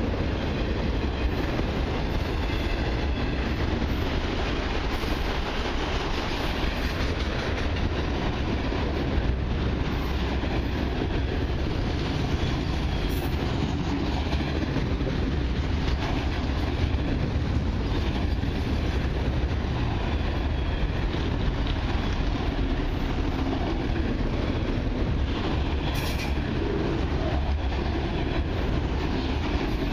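Freight train of autorack cars rolling past close by: a steady rumble and clatter of steel wheels on rail.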